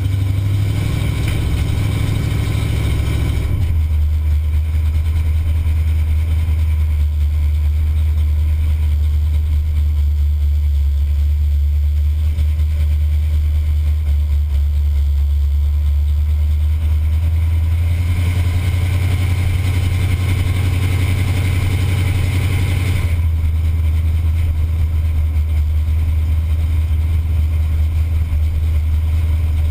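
Pontiac 455 V8 in a Buick station wagon, heard from inside the cabin, running steadily at low speed with a deep, loud low note. Near the start and again about two-thirds of the way through, it sounds fuller for a few seconds.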